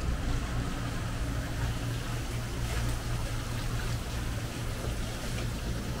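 A steady low engine hum under an even hiss of outdoor noise.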